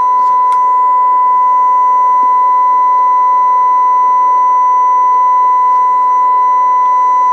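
A steady 1 kHz audio test tone, one unbroken pitch. It is being fed into an AM CB transmitter to modulate its 27 MHz carrier to about 50%.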